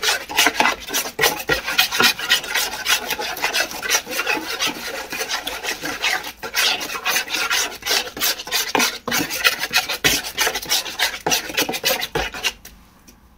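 Rapid, gritty scraping of a bicarbonate of soda, water and washing-up liquid cleaning paste being stirred in a container, stopping about a second before the end.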